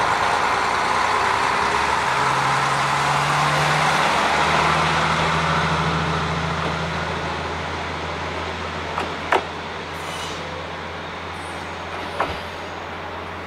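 Two-car KiHa 40 diesel railcar train running past and away: loud wheel-on-rail noise fades as it recedes while a low, steady diesel engine drone holds. Two sharp clicks come about nine and twelve seconds in.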